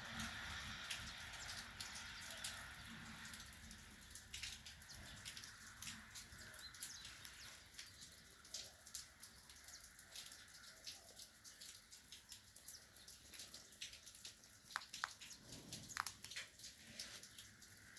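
Light rain: a soft hiss of rainfall with many separate drops and drips ticking. The hiss thins after the first few seconds, leaving the scattered drips to stand out.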